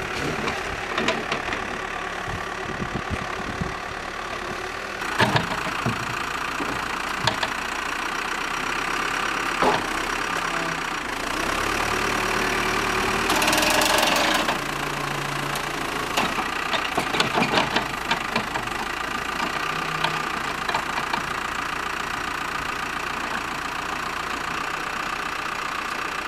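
Engine idling steadily, with scattered clicks and knocks over it and a brief hiss about thirteen seconds in.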